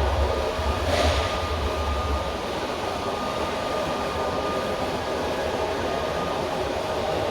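Steady mechanical hum with a deep rumble that drops away about two and a half seconds in, and a brief hiss about a second in.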